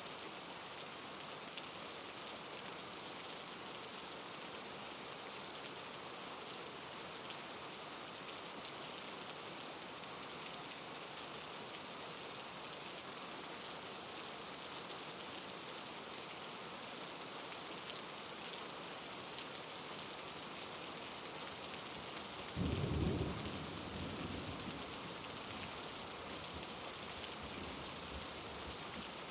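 Steady rain falling. About three-quarters of the way through, a low rumble of thunder breaks in suddenly and fades away over a few seconds.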